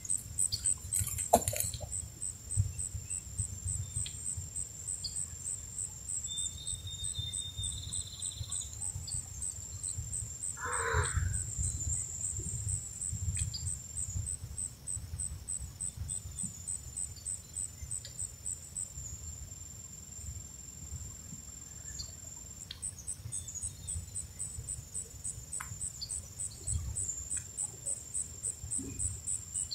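An insect chirping steadily in high-pitched pulses, about three a second, falling silent for a few seconds past the middle and then starting again. A single short bird call comes about eleven seconds in.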